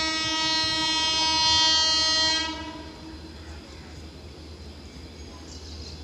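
Electric locomotive (WAP-4) horn blowing one long, loud blast that cuts off about two and a half seconds in, leaving a low steady rumble.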